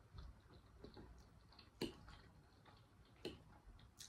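Near silence broken by a few faint, sharp clicks of a metal fork against a ceramic bowl while eating.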